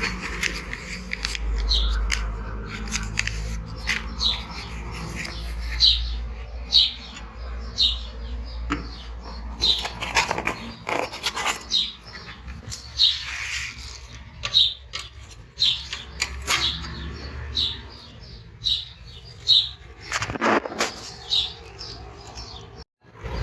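A bird chirping repeatedly, short high chirps about once or twice a second, over a low rumble that fades out about three-quarters of the way through.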